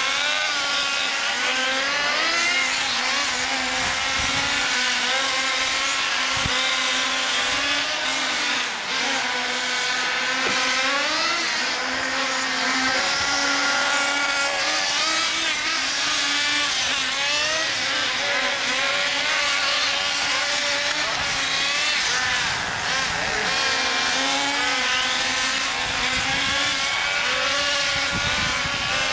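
Several nitro-powered HPI MT2 radio-controlled monster trucks, their small two-stroke glow engines buzzing at a high pitch, overlapping and revving up and down.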